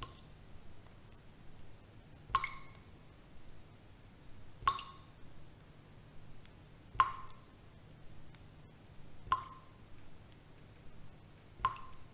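Water drips falling one at a time, five in all at an even pace of about one every two and a third seconds. Each drop is a sharp plink with a short ringing tone, over a faint low hum.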